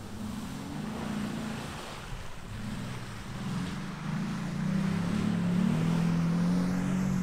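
Engine of an off-road vehicle driving through a mud trail and along a dirt track, getting louder about four seconds in as it comes closer. Wind buffets the microphone.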